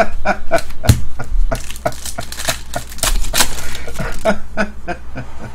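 Trading cards being flipped through by hand, in quick clicks and snaps, with crinkling from a torn foil card-pack wrapper.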